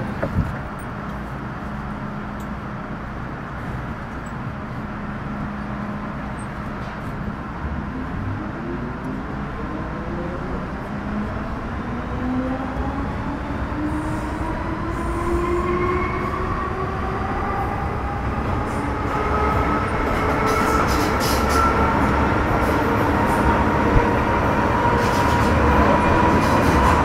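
Metro Cammell M-Train electric multiple unit with GEC GTO chopper traction pulling away. Over the rumble of the car, several seconds in, the chopper and traction motors' whine starts and rises steadily in pitch as the train gathers speed.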